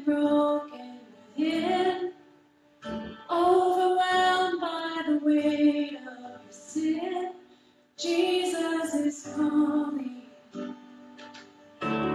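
A woman singing a slow worship song in phrases of one to three seconds with held notes and short breaks between them.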